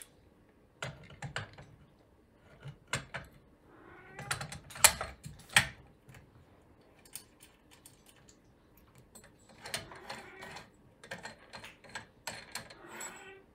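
Irregular clicks, knocks and short scrapes of the steel table-extension support rods of a Makita miter saw being handled and slid into the saw's aluminium base.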